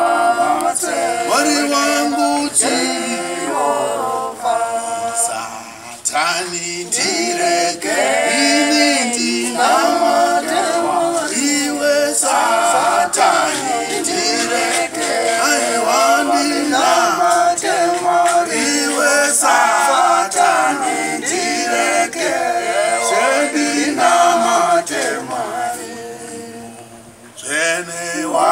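Small mixed group of men and women singing a hymn a cappella, with a brief drop in the singing near the end before it picks up again.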